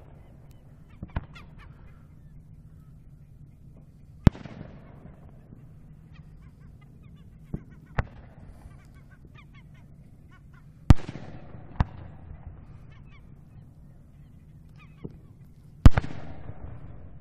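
Distant aerial fireworks shells bursting about a kilometre away across open water, each a sharp crack followed by a rolling rumble that fades over a second or so. There are about eight reports, the loudest about 4, 11 and 16 seconds in.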